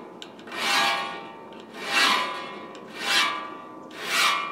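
Saw file rasping across the teeth of a rip saw held in a saw vise: four even strokes about a second apart, the teeth being sharpened at four strokes to each tooth.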